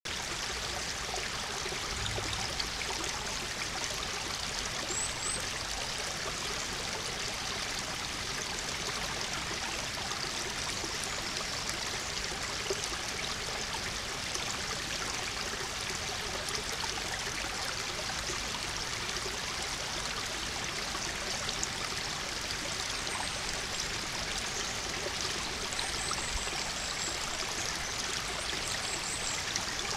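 Shallow woodland stream running over stones, a steady rush of water, with a few faint high chirps about five seconds in and again near the end.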